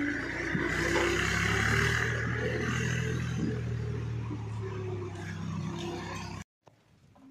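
Tractor's diesel engine running steadily, then cutting off abruptly about six seconds in, leaving only faint clicks.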